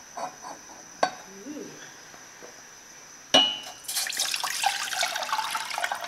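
Water poured from a plastic measuring jug into an empty stainless steel pot, splashing steadily onto the metal bottom. The pour starts about four seconds in, just after a single sharp clink.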